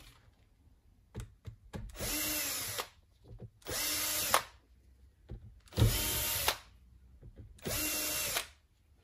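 Cordless drill-driver whirring in four short bursts of just under a second each, backing out small laptop screws, with light clicks between the bursts.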